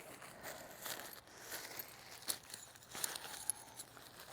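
Lanshan 1 tent fabric rustling and crinkling as it is handled and spread out for pegging, with a few small sharp clicks.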